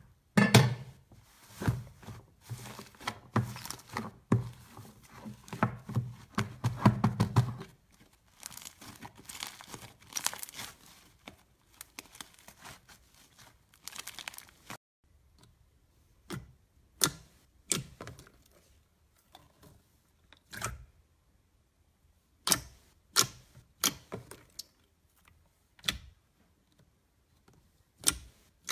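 Thick slime being handled, squeezed, kneaded and pressed, giving sticky crackling sounds: dense for the first several seconds, then sparser, and in the second half only separate short sharp pops every second or two.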